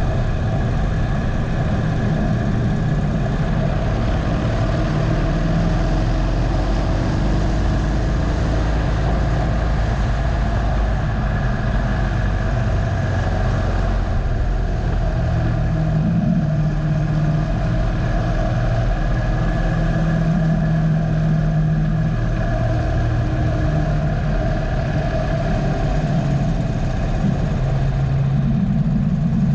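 Harley-Davidson Dyna Low Rider's V-twin engine running steadily under way. Its pitch rises and falls a little as the bike speeds up on a short straight and slows for the corners, over a constant rush of wind and road noise.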